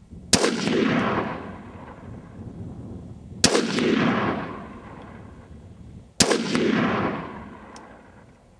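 Three single shots from a short-barrelled AR-15 rifle, fired slowly about three seconds apart, each crack followed by a long rolling echo.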